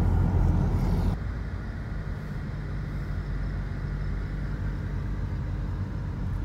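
Car engine and road noise heard from inside a moving car: a steady low rumble that drops abruptly in level about a second in, then runs on quieter with a steady low hum.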